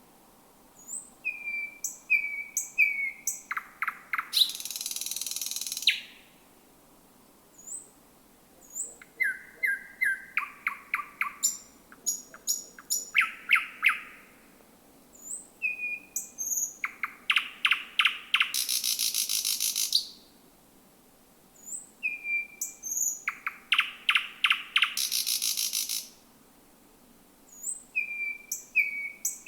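Thrush nightingale singing: four full song phrases with short pauses between them. Each phrase opens with a few short whistled notes, runs into a fast series of hard clicks, and ends in a loud harsh buzzing trill.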